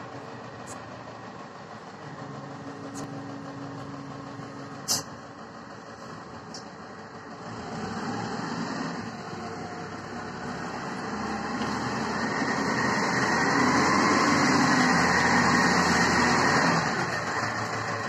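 Self-loading concrete mixer truck's diesel engine running as the machine drives up and past, growing louder over several seconds and easing off near the end. A single sharp click about five seconds in.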